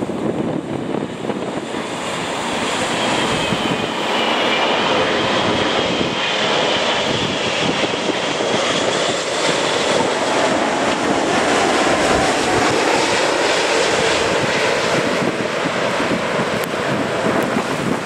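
Airbus A380 jet engines on final approach passing low overhead: a steady jet roar that swells from about four seconds in, with a high wavering whine above it.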